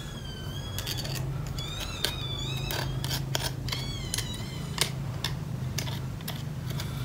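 A metal spoon clicking against crab shell and plate as crab meat is picked apart, with scattered sharp clicks. Over it come several short spells of high, wavering animal calls in the first half, and a steady low hum.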